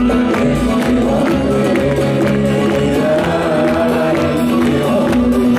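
Live band music played loud through a concert PA, with singing, and the crowd clapping along in time.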